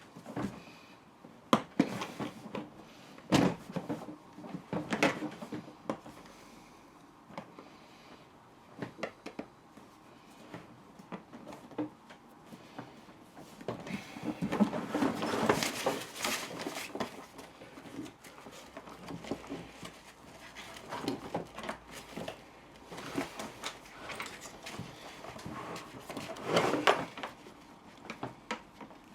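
Clicks, knocks and scraping from a telescopic suitcase handle being pried at with hand tools. A few sharp knocks come early on, with longer rasping scrapes about halfway and again near the end.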